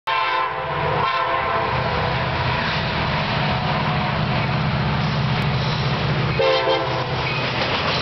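Lead CSX SD70MAC locomotive's air horn sounding a blast of about a second at the start and a short honk near the end. Under it, the steady rumble of the approaching diesel locomotives and their wheels on the rails.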